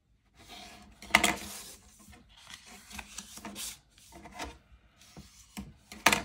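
Plastic bone folder rubbed along the folds of a paper pocket to crease them: a series of dry scraping strokes, the sharpest about a second in and another just before the end.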